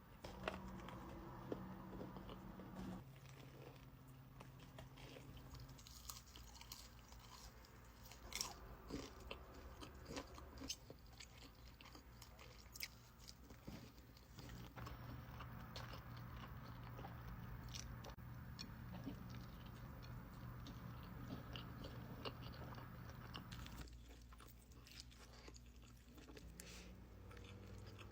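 A person biting and chewing crunchy food close to the microphone, with sharp crunches and clicks scattered through, over a faint steady hum that shifts every several seconds.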